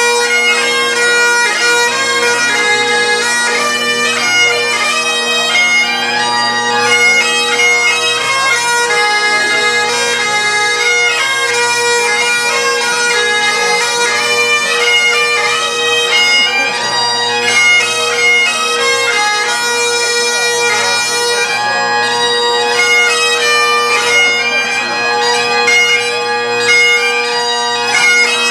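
Bagpipes playing a quick tune over their steady drones.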